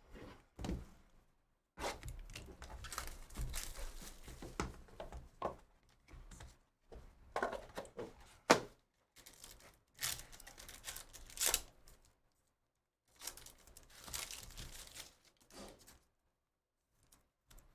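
Trading card pack wrappers being torn open and crinkled in irregular bursts, with a sharp tap about eight and a half seconds in.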